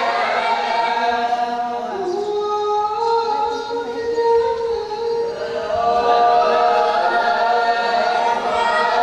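A group of voices singing together in long, held notes, dipping slightly in loudness midway and swelling again.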